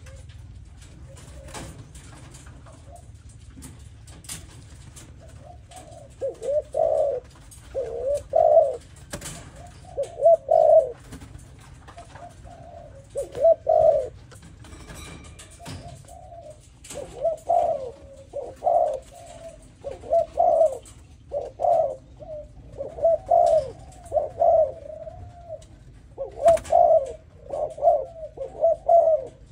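Young spotted dove cooing: repeated short coo phrases, starting about six seconds in and coming in groups with brief pauses between them.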